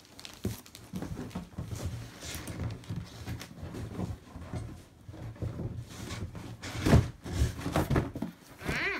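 Irregular knocks and shuffling of things being handled and moved on the floor, with a louder thump about seven seconds in.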